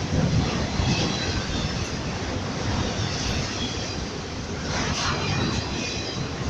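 Freight train rolling past at track side: a steady rumble and rattle of wheels on rail.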